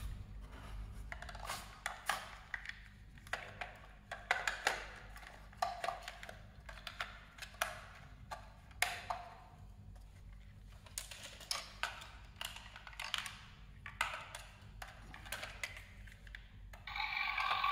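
Hard plastic clicks, taps and knocks as a plastic toy RC excavator is handled and turned over. Near the end its built-in electronic sound effect switches on.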